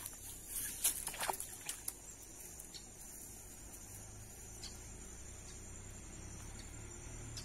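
Faint outdoor ambience: a thin, steady high insect trill over a quiet hiss, with a few light clicks and rustles in the first two seconds.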